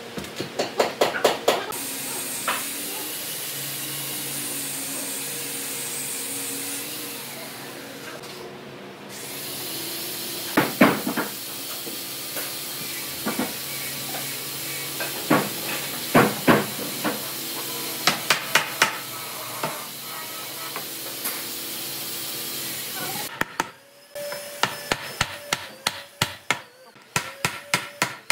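Hammer blows on wood: a quick run of strikes at the start, scattered strikes through the middle and an even run of about three a second near the end, over a steady hiss.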